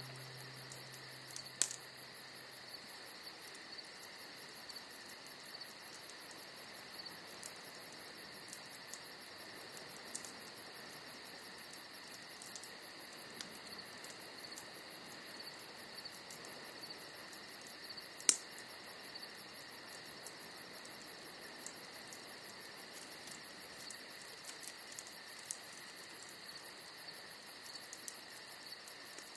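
Crickets chirping steadily, with a wood bonfire crackling underneath: a few sharp pops, the loudest about 18 seconds in.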